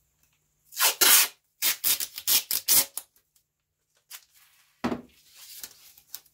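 Masking tape being pulled off the roll in several quick tugs, the first one the longest. This is followed by a knock and some rustling of the tape being handled.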